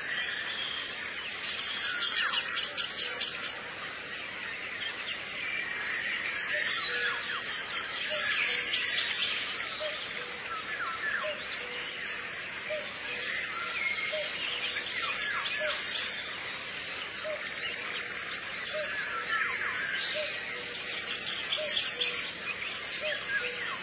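Background track of songbird chirps with a fast trill that comes back about every six and a half seconds, like a looped recording.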